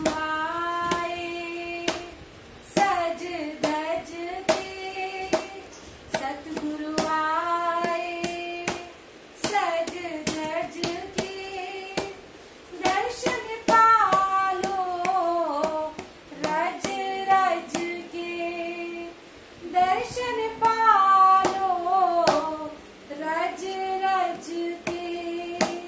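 Two women singing a Punjabi devotional bhajan to the Satguru in unison, clapping their hands along in time.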